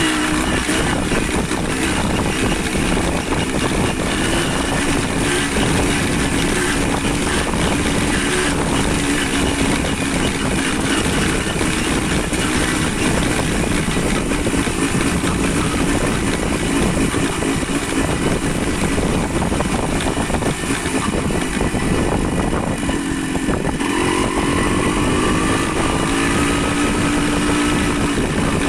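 Motorcycle engine running under way, with a loud even hiss over it. The engine note dips briefly and then climbs again about three-quarters of the way in.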